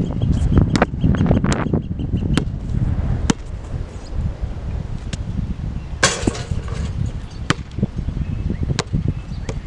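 Basketball dribbled on an outdoor hard court, with scattered sharp bounces over a low rumble, and a brief rustling burst about six seconds in.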